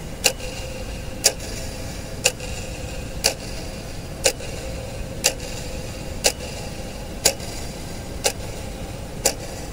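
Regular clock-like ticking, one sharp tick each second, over a low steady hum.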